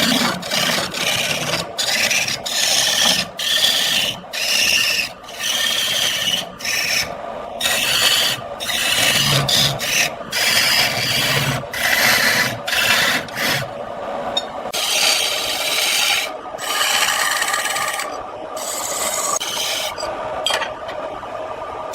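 Wood being cut on a lathe: a turning tool scraping and rasping against the spinning workpiece in many short passes with brief breaks, turning steadier later on.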